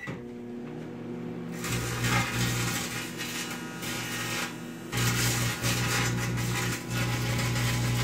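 Microwave oven running with its steady mains hum, joined from about a second and a half in by the crackle of thin copper wire arcing and glowing in the cavity.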